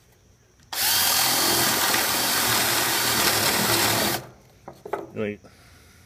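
Handheld cordless drill running steadily for about three and a half seconds, boring a hole through a pine brace for a half-inch dowel, then stopping.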